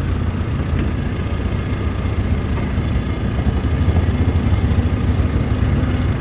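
Small gasoline engine on a gigging boat running steadily at low speed, a constant low hum with no change in pitch.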